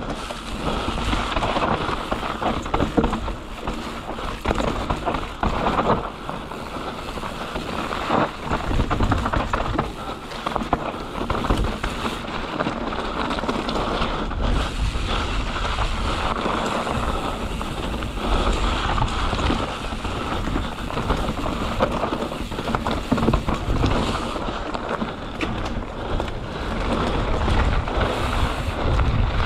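Mountain bike riding fast down a dry dirt and gravel trail: tyres crunching over loose stones and the bike rattling over bumps, a constant clatter with frequent knocks.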